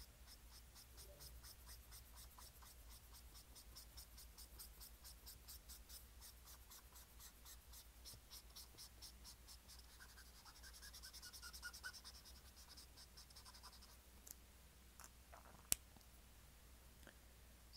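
Quiet close-up scratching of a drawing pen on paper: many quick short strokes in a steady rhythm, with one longer scratchy passage about eleven seconds in. The strokes stop a few seconds before the end, and a single sharp click follows.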